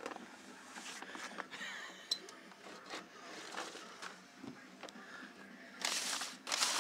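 Faint rustling, light knocks and scraping of household items being handled behind a kitchen pull-out drawer, with a louder scrape about six seconds in.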